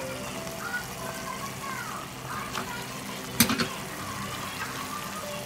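Manchurian sauce simmering in a pot, with a sharp knock and a short clatter about three and a half seconds in as fried cauliflower pieces are tipped into it.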